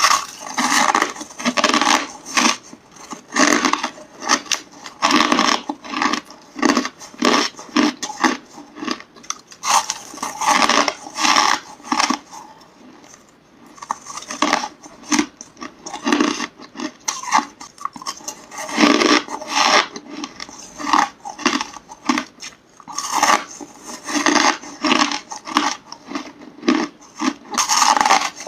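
Close-miked chewing of hard crushed ice: rapid, irregular crunches with a short lull about halfway through.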